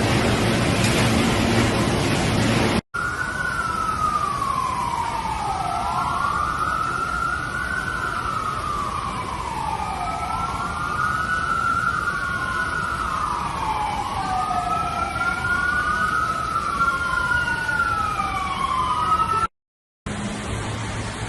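Emergency-vehicle sirens wailing, two overlapping tones rising and falling slowly over a steady hiss of rain. This runs from about 3 seconds in until a cut near the end. Before and after it there is only a steady rushing hiss of rain.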